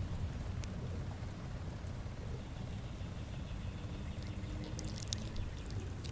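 Storm ambience after a hailstorm: water trickling and dripping, over a steady low rumble, with a few faint ticks about four to five seconds in.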